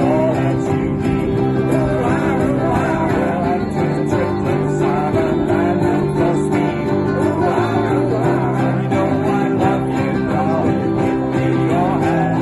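A ukulele band strumming chords together in a steady rhythm, with voices singing over the top.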